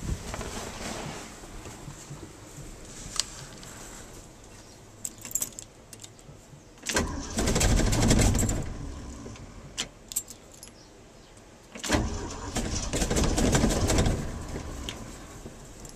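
1974 Ford F250 being cranked on its starter twice, about two seconds each time, without the engine catching on this failed cold start. Keys jangle and click in the ignition before the first crank.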